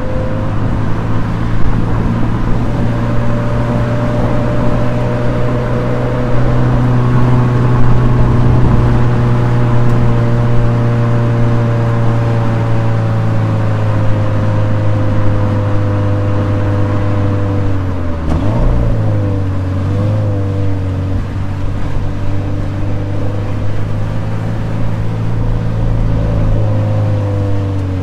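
Toyota 86's flat-four boxer engine running under load while driving, its pitch drifting slowly as the revs change. About two-thirds of the way through, the engine note drops suddenly and wavers before settling.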